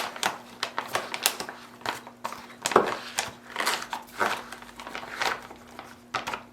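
Foil-lined freeze-dried meal pouch crinkling and rustling as it is handled, with irregular taps and scrapes, over a faint steady hum.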